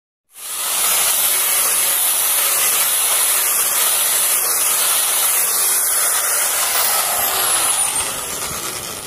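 Electric wood planer running with a steady, high hiss that dies away near the end.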